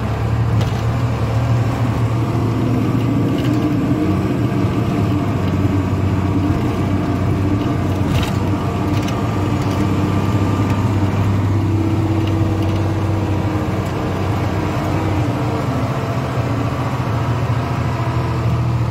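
Truck's diesel engine running steadily while the truck drives slowly, heard from inside the cab as a constant low drone.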